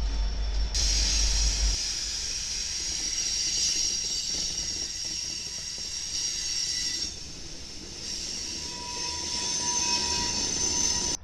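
Freight train led by BNSF and KCSM locomotives rolling past on curved track: a steady high hiss of wheels on rail, with a thin steady squeal joining near the end.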